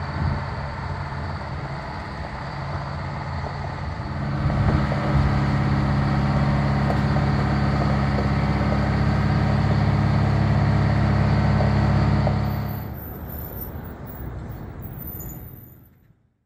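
Engine of boatyard machinery moving a boat on land, running steadily. It grows louder about four seconds in, then drops back around thirteen seconds and fades away near the end.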